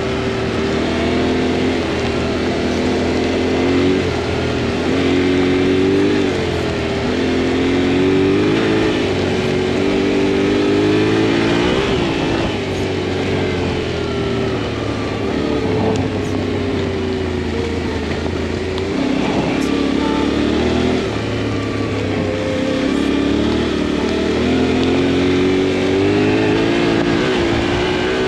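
Motorcycle engine running while riding, its pitch rising and falling repeatedly as the throttle is opened and eased off, over a steady rushing noise.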